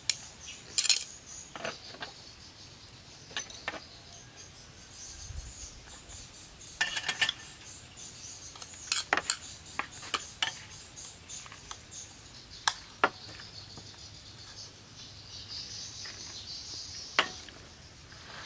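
Serving utensils clinking and clattering against a steel bowl and a metal tray as noodles are dished onto plates, in scattered sharp clicks, several in quick clusters. Insects chirr steadily throughout.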